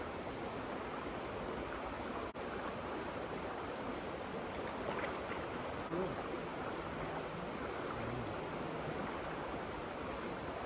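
Steady rushing of flowing stream water, a continuous even hiss with a momentary dropout about two seconds in.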